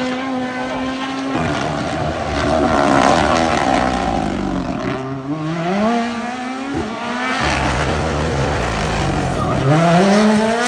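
Turbocharged four-cylinder rally car accelerating hard through the gears. Its engine note climbs, drops back at each upshift and climbs again, with the sharpest rises about halfway through and near the end.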